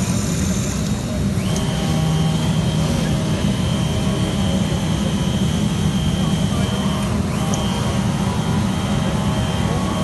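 Shima Seiki P-CAM-220 automatic fabric cutting machine running: a steady, loud blower-like noise, with a high steady whine that comes in about a second and a half in and breaks off briefly near seven seconds.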